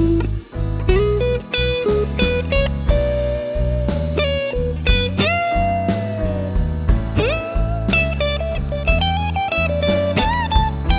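Electric guitar playing a single-note blues lead through the Nux Amp Academy's clean MR.Z 38 amp model, with string bends about halfway through and a note shaken with vibrato near the end. A blues backing track of drums and bass runs underneath.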